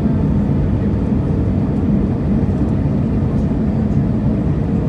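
Steady rumble of an Airbus A320 heard inside the passenger cabin: engine and airflow noise, even in level.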